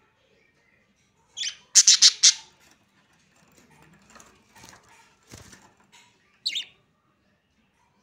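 Budgerigars chirping: a quick run of loud, sharp chirps about two seconds in, softer chatter after it, and one more sharp chirp near the end.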